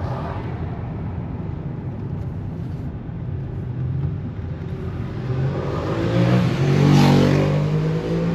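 Road traffic rumble, with a vehicle engine accelerating: its note rises in pitch and grows loudest about seven seconds in.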